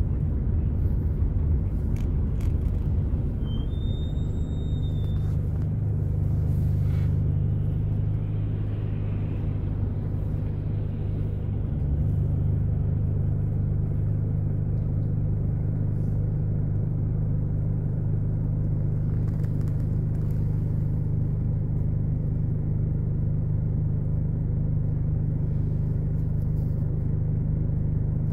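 Steady low rumble of a car heard from inside its cabin: engine and road noise. The low hum shifts slightly about twelve seconds in.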